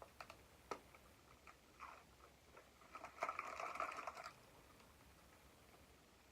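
Takeout food and utensils being handled while eating: a few light clicks, then about a second of crackling rustle about three seconds in.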